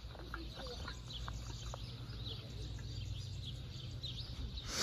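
Faint birds chirping: scattered short chirps over a low steady rumble, with a brief louder rush of noise at the very end.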